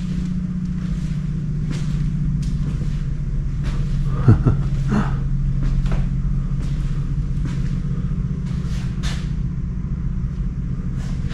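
A steady low hum runs throughout, with scattered soft taps and a sharper knock about four seconds in.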